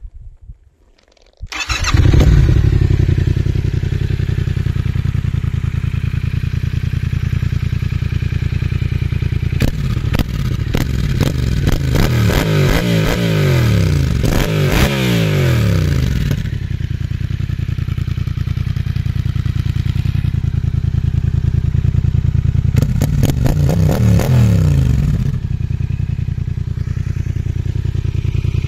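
2014 Yamaha MT-07's parallel-twin engine, breathing through a Roadsitalia carbon slip-on exhaust with its dB-killer baffle fitted, starting about a second and a half in and settling to an idle. In the middle it takes a long series of quick throttle blips, then a shorter burst of revs near the end, dropping back to idle each time.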